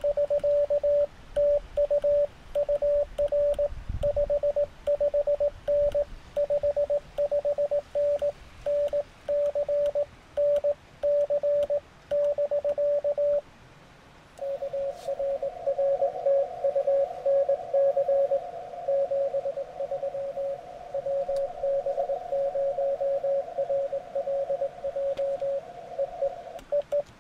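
Morse code (CW) at one steady pitch from a Recent RS-978 transceiver. First comes the clean sidetone of the operator's own keying on an iambic paddle, sending a signal report ("TU UR 55N NC BK"). After a short pause about halfway through, the other station's reply ("RR TU NC 73 ... bye") comes in through the receiver with a hiss of band noise around it.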